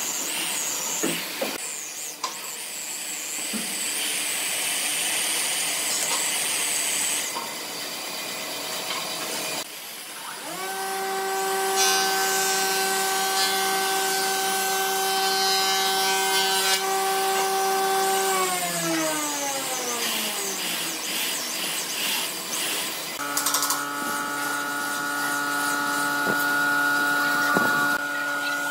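Corded electric drill boring holes into a dry log, its motor whining under load as the bit cuts the wood. About two-thirds of the way through, the drill is let off and its whine falls in pitch as it winds down. Near the end it starts again with a steady, higher whine.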